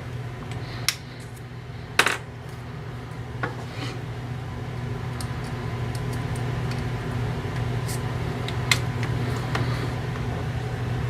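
Small metal tools being handled: a few sharp clinks, the loudest about two seconds in, over a steady low hum.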